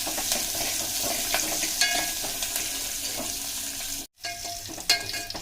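A tempering of chopped onion, curry leaves, garlic, cumin and mustard seeds sizzling as it fries in hot oil, stirred around the pan with a few sharp clinks. The sound cuts out briefly about four seconds in.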